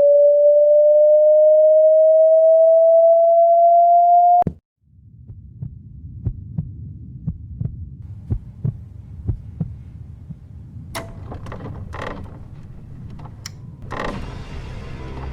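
Suspense sound design: a loud, pure tone slowly rises in pitch for about four seconds and then cuts off abruptly. A low, heartbeat-like throbbing follows, with scattered sharp clicks and knocks in the last few seconds.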